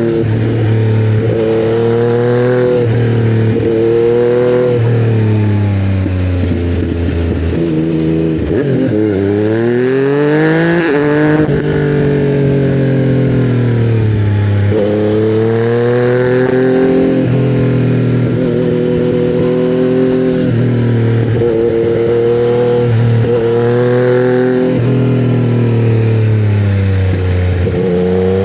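2020 Yamaha MT-09's 847 cc inline three-cylinder engine through custom headers and a titanium Akrapovic silencer, pulling hard under acceleration. The note climbs again and again and drops sharply at each upshift, with a slowdown and renewed climb near the middle.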